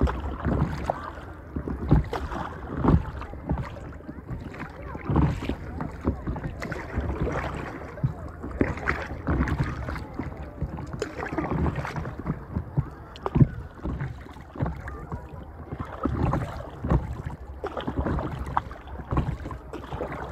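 Small waves lapping and slapping irregularly against the hull of a stand-up paddleboard, with sharp splashy knocks every half second to a second.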